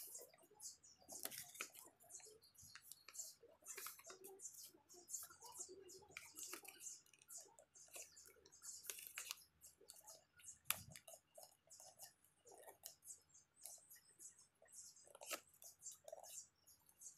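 A sheet of paper being folded and creased by hand: faint, irregular rustles, crinkles and small clicks.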